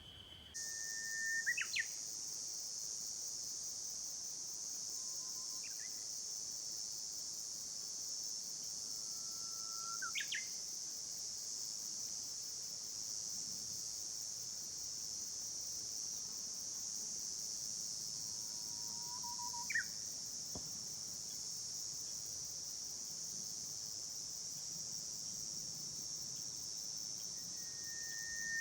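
Steady high-pitched insect chorus, with a bird calling about every nine seconds. Each call is a short held whistle followed by a quick upward sweep.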